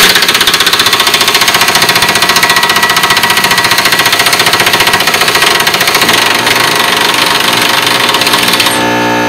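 Impact wrench with a 21 mm socket hammering rapidly on the lower shock nut, breaking it loose. Near the end the hammering gives way to a steadier run as the nut spins free.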